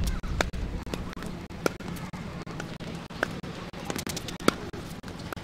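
Tennis balls hitting racket strings or the hard court: four sharp pops about every second and a quarter, the last the loudest.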